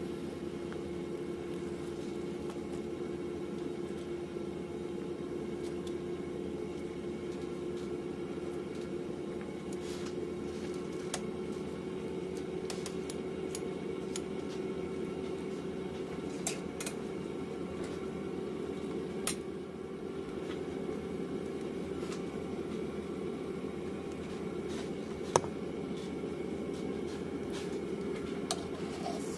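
A steady mechanical hum with a faint held tone that creeps slightly upward in pitch, with a few light clicks and taps scattered through.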